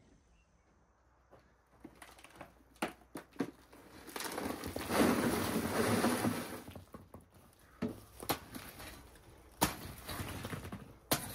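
Broken rock and brick rubble tipped from a wheelbarrow into a pit, clattering for a few seconds as the stones tumble and settle, then a few separate sharp strikes of a shovel blade on the rocks.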